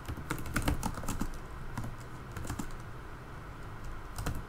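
Typing on a computer keyboard: a run of uneven key clicks.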